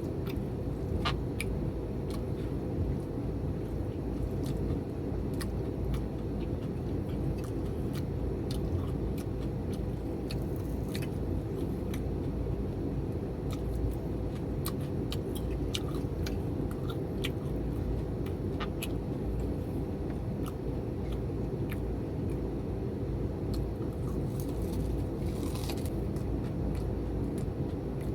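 Close-up chewing and biting of crispy fried food, heard as many short crunchy clicks with a longer crackle near the end, over a steady low rumble.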